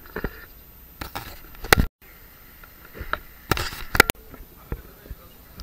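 Scattered knocks, clicks and rustling noise, with two louder rough bursts. The sound drops out completely for a moment about two seconds in, where the recording cuts from one scene to another.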